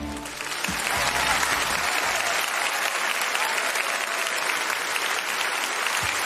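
Audience applauding steadily. The last notes of a pop song die away under the clapping in the first two seconds.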